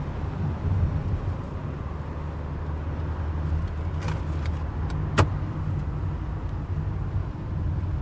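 Car driving, heard from inside the cabin: a steady low hum of engine and road noise, with a few faint ticks about four seconds in and one sharp click a second later.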